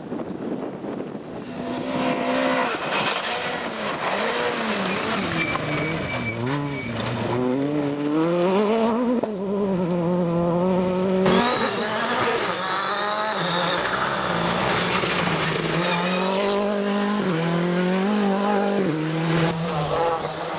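Gravel rally car engine at full effort, its pitch rising and dropping again and again as the driver shifts gears and lifts off. Wind noise on the microphone is heard before the engine comes in, about a second and a half in.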